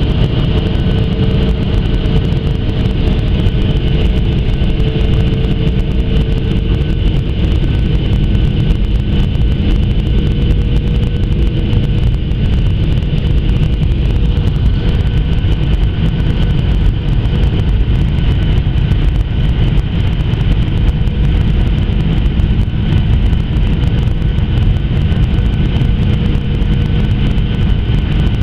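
Steady jet airliner cabin noise heard from a window seat near the wing: an even engine hum and rush of air with a few steady whining tones held throughout, as the aircraft flies on approach.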